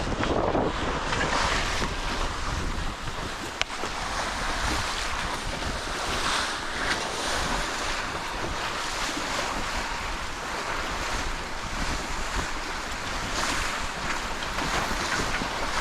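Waves and water rushing past the hull of a small sailboat under way, with steady wind buffeting the microphone.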